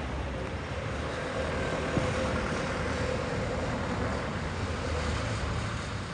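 Street traffic noise: a motor vehicle running past with a low rumble, swelling a little after the first second or so and easing off near the end.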